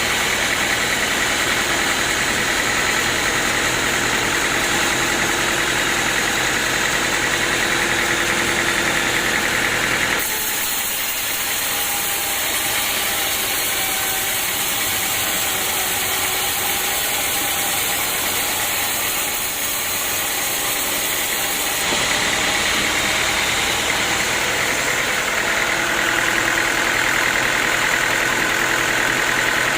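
Sawmill engine running steadily. The sound changes abruptly twice, about ten seconds in and again about twenty-two seconds in.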